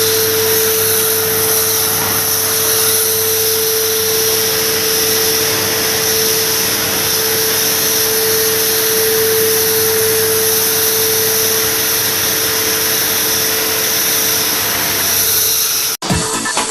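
Pressure washer running steadily with a hissing spray and a constant motor whine, cutting off suddenly near the end.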